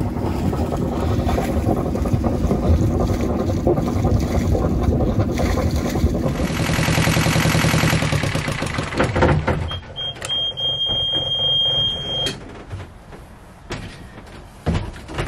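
Yanmar 2GM20F two-cylinder marine diesel running steadily, test-run after an impeller change to check for leaks. About ten seconds in, the level falls and a steady high beep sounds for about two and a half seconds, followed by a few light knocks.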